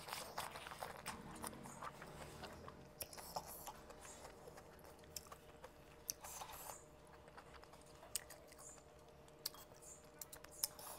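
Close-up chewing of boiled leafy greens and smoked fish: soft, scattered wet clicks and smacks of the mouth, with a few louder clicks near the end as a piece of fish is eaten by hand.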